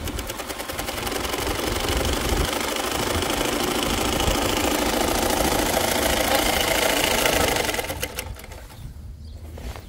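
Electric-motor-driven sewing machine stitching heavy tent fabric at a fast, even rate, speeding up over the first second or two and stopping about eight seconds in.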